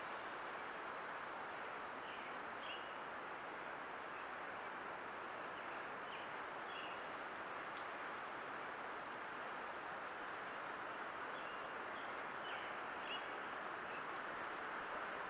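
Steady hiss from a Browning trail camera's microphone, with a constant faint high-pitched electronic whine and a few faint bird chirps scattered through.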